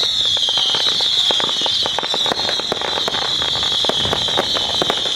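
Fireworks going off: a loud, steady high-pitched whistle, dipping slightly in pitch and then holding, over many sharp crackling pops.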